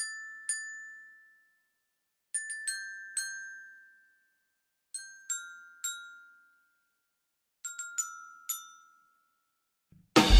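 Sparse glockenspiel notes in a post-rock song, struck in small clusters of two to four about every two and a half seconds, each ringing out and fading into silence. The full band comes in loudly at the very end.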